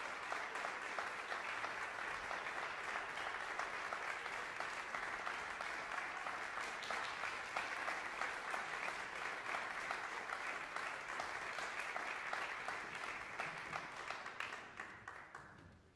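Concert audience applauding, a steady patter of many hands clapping that dies away near the end.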